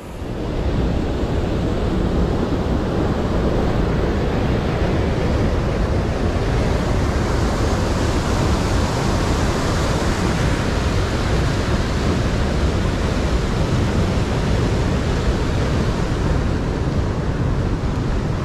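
Steady rush of fast-flowing water, a loud even roar like a mountain stream or waterfall close by, with no change in level.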